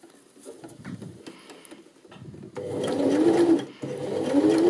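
Janome 725s sewing machine stitching in two short bursts, the first starting about two and a half seconds in and the second a moment after a brief pause, its motor pitch wavering up and down with speed. Before that come faint rustles of knit fabric being handled.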